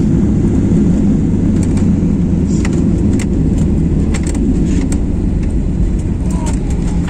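Loud, steady low rumble inside the cabin of a jet airliner rolling along the runway just after landing: engine and wheel noise. Scattered light clicks and rattles come through in the middle.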